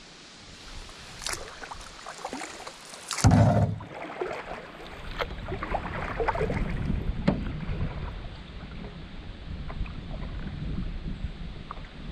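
A canoe being paddled across a lake: paddle strokes splash and water laps against the hull, with scattered sharp knocks and one loud thump about three seconds in.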